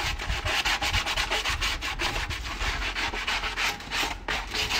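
A ball of scrunched-up aluminium foil scrubbed hard back and forth over a rusty cast iron pan in quick scraping strokes, scouring off the worst of the rust.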